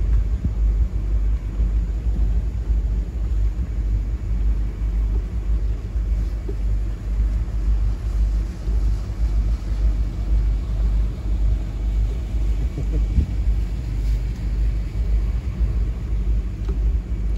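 Steady low rumble of a motor boat under way, with an unsteady, fluttering loudness.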